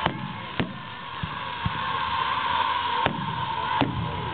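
Aerial fireworks shells bursting: a series of sharp bangs, about half a dozen in four seconds, with a couple of duller low thuds between them.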